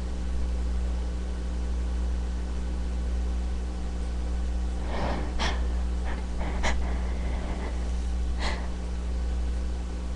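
A few short sniffs and quick nasal breaths over a steady low hum, starting about five seconds in. They come from a sore, runny nose during attempts to bring on a sneeze.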